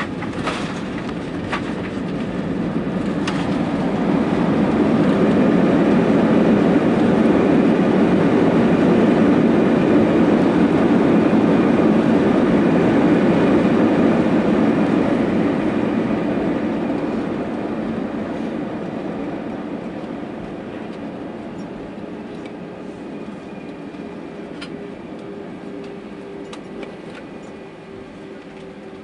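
Airbus A320 cabin noise during the landing rollout: engine noise from reverse thrust builds over the first few seconds, holds, then dies away as the jet slows on the runway, over tyre and runway rumble. A few sharp knocks come near the start, and a steady hum comes in near the end.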